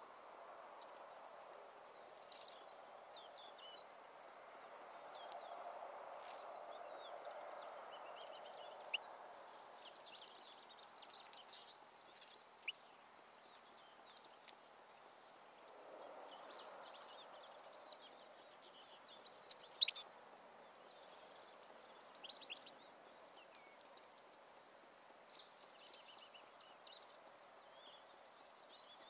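European goldfinch giving scattered short, high chirps and twitters, with a brief loud burst of a few notes about two-thirds of the way through, over faint steady background noise.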